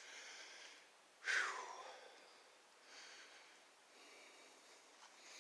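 A person breathing heavily through the mouth, with one louder exhale about a second in that falls in pitch, like a sigh, and softer breaths after it.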